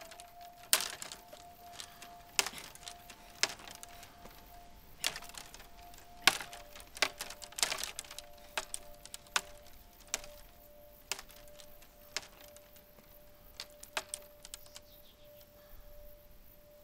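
Irregular sharp cracks of twigs and dry brush snapping underfoot, over a steady, pure sustained tone from the film's score that steps slightly lower in pitch about six seconds in.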